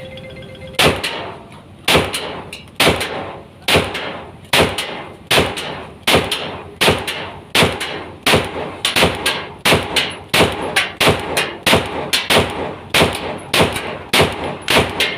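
Glock 17 Gen 4 9mm pistol fired semi-automatically, shot after shot, about twenty rounds: the first few about a second apart, then quickening to two or three a second, each crack followed by a short ringing echo.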